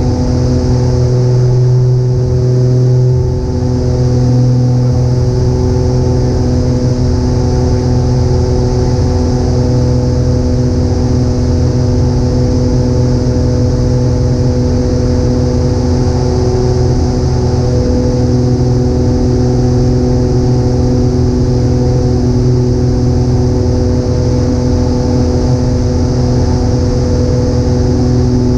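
Steady cabin drone of a twin-engine piston airplane's engines and propellers in cruise descent: an even hum made of several steady tones over a low rumble, with a hiss above it.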